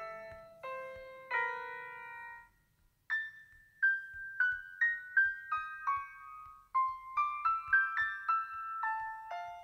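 Background piano music: a few chords, a short pause about three seconds in, then a melody of single notes.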